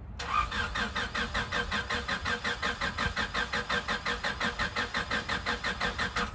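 Honda Del Sol's engine being cranked by the starter motor without catching, an even chug of about six compression pulses a second, a car that won't start. It cuts off suddenly near the end.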